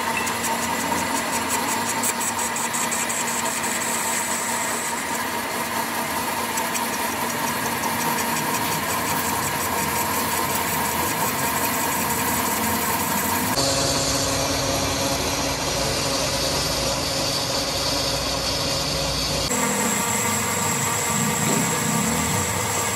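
Metal lathe running steadily with its chuck spinning a steel coupling plate, a constant mechanical hum with a high steady whine. The tone changes abruptly about 13 seconds in and changes back about six seconds later.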